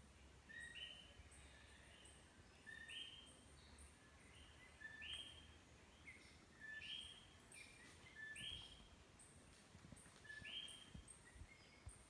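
Faint forest animal calls: a two-note call, a short lower note followed by a longer, higher one, repeated about every two seconds, over a steady run of quick, very high chirps.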